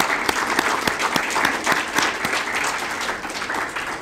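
A small audience applauding, many hands clapping together, thinning and tapering off near the end.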